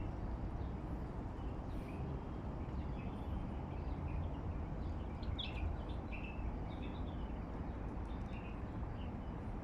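Birds chirping in short high calls now and then, most of them around the middle, over a steady low rumble of outdoor background noise.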